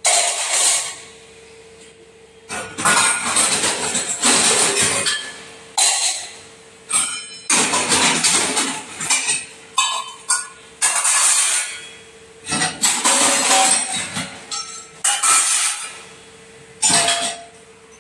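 Stainless steel utensils clattering and clanking in repeated bursts every second or two as they are washed at a sink and set onto a steel dish rack, over a faint steady hum.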